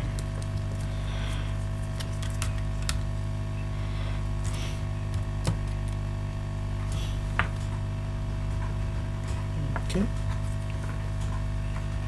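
Steady electrical mains hum from bench equipment, with a few light clicks and handling noises as the LCD cable's plug is pressed into the laptop motherboard's LVDS display connector.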